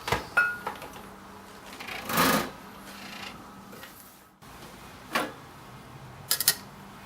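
Clicks, knocks and a brief scraping rustle of parts being handled by hand: a click at the start, a rustle about two seconds in, a knock about five seconds in and a quick run of clicks near the end, over a faint steady hum.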